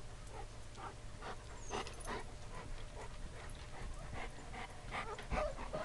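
A dog panting close by, in quick, uneven breaths.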